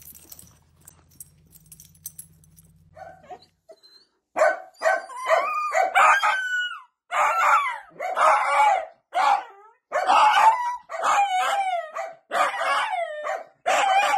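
A dachshund barking repeatedly, starting about four seconds in: a run of loud barks about one a second, some drawn out and falling in pitch.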